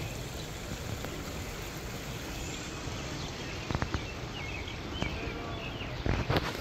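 Outdoor garden ambience: a steady background hiss with faint bird chirps, and a few short knocks, one cluster about four seconds in and a louder one near the end.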